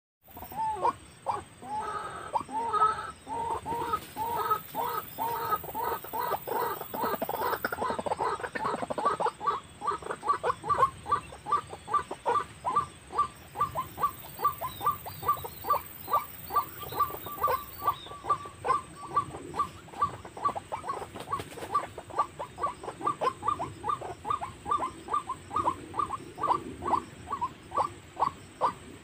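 White-breasted waterhen calls: a fast, unbroken run of short repeated notes, about three a second, thicker and more layered in the first few seconds.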